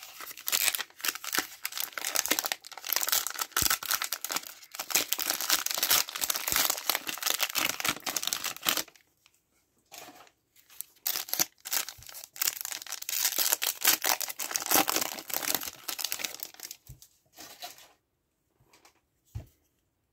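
Plastic cello-pack wrappers of trading cards crinkling and tearing as they are ripped open by hand, in two long stretches of dense crackling with a short pause about nine seconds in and quiet near the end.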